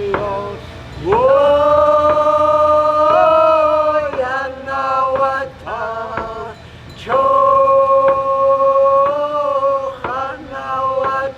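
Chanted song by a single singer: a long held note of about three seconds starts a second in, short sung syllables follow, then a second held note of about two seconds. Sharp beats sound along with it.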